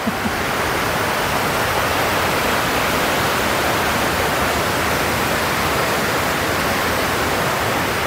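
Rushing water of a mountain stream and waterfall: a steady, even rush that swells slightly in the first second.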